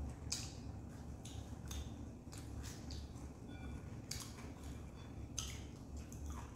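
Quiet eating sounds: chewing, with irregular small clicks of wooden chopsticks against food and a paper takeout box, about one or two a second, over a low room hum.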